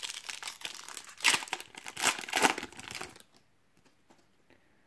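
Foil wrapper of a Donruss trading-card pack crinkling and tearing as it is opened and the cards are pulled out, with louder rustles about one and two seconds in. It stops about three seconds in, leaving a few faint clicks.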